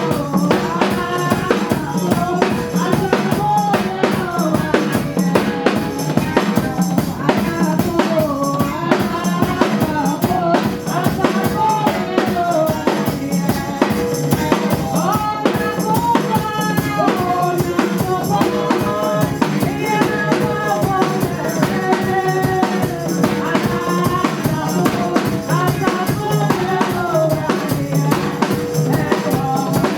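Church praise music: a drum kit plays a busy, steady beat with bass drum and snare under a moving melody line, at an even, loud level.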